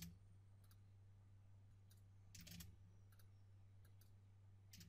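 Near silence over a faint low hum, broken by scattered faint clicks from a computer mouse and keyboard as values are typed into the text boxes, some of the clicks coming in quick pairs.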